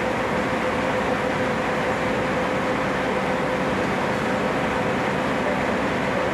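Intercity coach's diesel engine running as the bus moves slowly: a steady drone with a constant humming tone.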